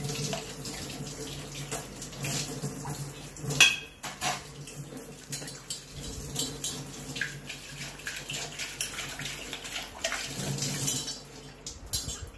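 Kitchen tap running as stainless steel pots and cups are rinsed under it, with scattered clinks and knocks of metal against metal and the sink. One louder clank about three and a half seconds in.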